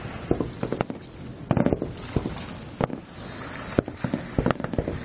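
Aerial fireworks shells bursting in an irregular string of sharp bangs, roughly one every half second to second, with a loud cluster of several bangs about a second and a half in.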